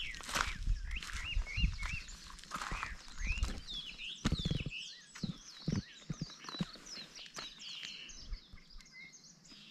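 Many small birds chirping and singing in quick, overlapping calls, with irregular footsteps on a loose-rock dirt track.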